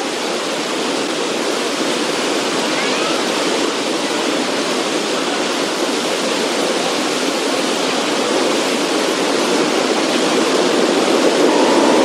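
Waterfall: a steady rush of water crashing into its plunge pool, growing slightly louder toward the end. A faint steady tone comes in near the end.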